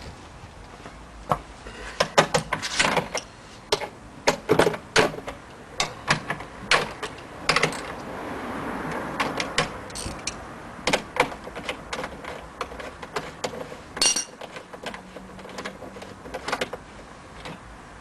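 Irregular clicks, taps and clattering of hand tools and trim parts being handled while a car door handle is unscrewed, with a short stretch of rustling noise about halfway through.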